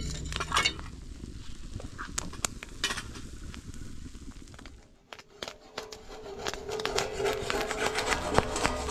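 Clinks, knocks and scraping of kitchen utensils against pots and dishes, as in stirring and handling cookware. There is a brief lull about five seconds in, then busier clatter over a steady faint tone.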